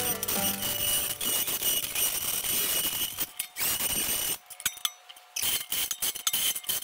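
Steel pails clanking as they are handled. After a short lull, a cordless impact driver runs a bolt tight through the pail walls in a quick run of sharp knocks.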